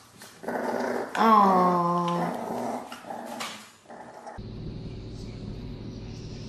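Bulldogs play-growling: rough growls with one longer call that falls in pitch about a second in. After about four seconds the sound changes abruptly to a steady low hum.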